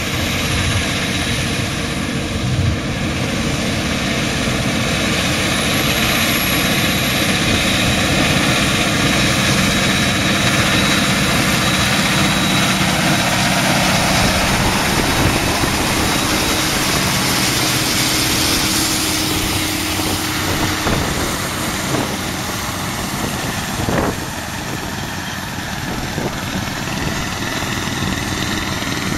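Valtra N174 tractor's 4.9-litre four-cylinder diesel engine running steadily, with a single brief knock near the end.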